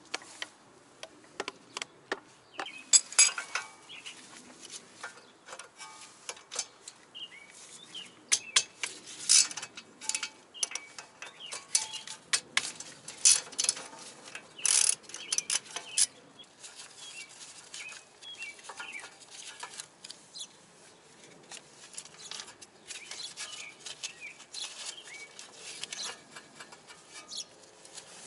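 Hand tools and steel brake parts clinking and knocking in irregular, sharp taps as the brake caliper and its bracket bolts are taken off a car's front wheel knuckle; the busiest and loudest clatter comes in the middle stretch.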